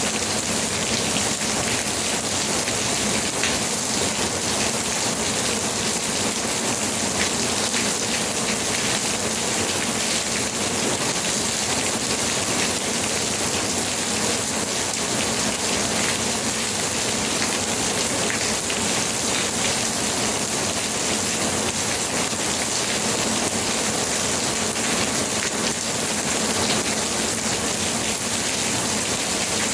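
Steady rainfall hissing evenly, with many small drops pattering on a surface.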